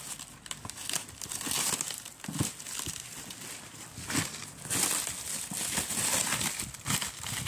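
Plastic bag and plastic wrap crinkling and rustling as they are handled, in irregular bursts.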